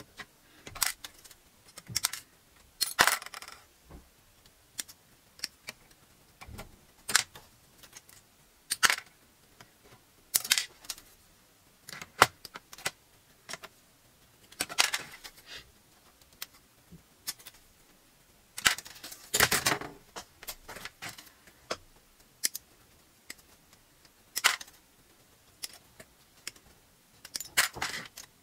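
Hobby nippers snipping parts off plastic model-kit runners, in irregular sharp clicks, with the plastic runner frame rattling in the hands and cut parts clattering into a plastic tub. The longest rattles come about 3 seconds in and around 19 to 20 seconds in.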